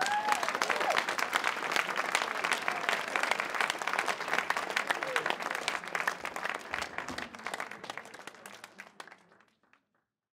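Audience applauding, a dense patter of many hands clapping that thins and dies away over the last few seconds and stops about a second before the end.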